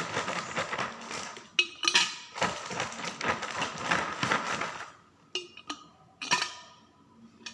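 Ice cubes being dropped into a cocktail shaker: a dense clatter of clinks for about five seconds, then a few separate clinks.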